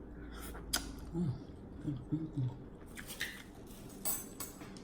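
Eating at a table: a handful of sharp clicks and clinks of utensils and dishes, with soft low mouth noises between them.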